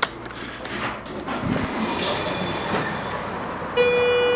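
Schindler 330A hydraulic elevator answering a hall call. A click and some mechanical noise as the car gets under way, then near the end a steady electronic signal tone sounds for about a second.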